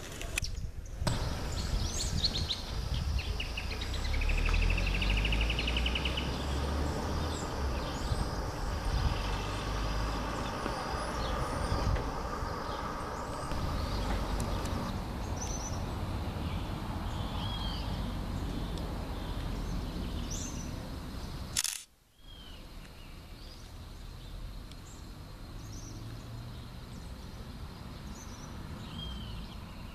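Outdoor ambience with birds chirping and calling here and there over a low rumble, including a rapid trill about four seconds in. About 22 seconds in there is a sharp click and a brief dropout, after which the background is quieter and the chirps continue.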